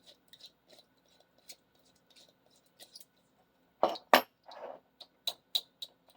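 Light clicks and clinks of a screwdriver and other small hand tools being handled. Two louder knocks come about four seconds in, followed by a brief rustle and a few sharp clicks.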